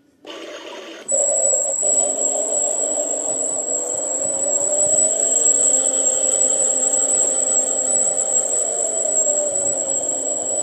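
Battery-powered toy washing machine's small electric motor starting up about a second in and running steadily, a whir with a constant high whine and lower tones that drift slowly in pitch as the drum turns.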